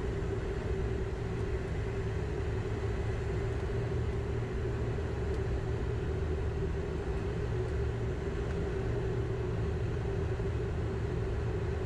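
Cockpit noise of a Learjet 60XR business jet on final approach with gear down and full flaps: a steady rush of airflow and engine noise with a low rumble and a steady hum.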